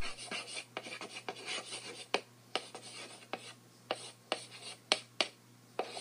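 Chalk writing on a blackboard: a quick run of short scratching strokes and sharp taps as the chalk strikes the board, about three a second.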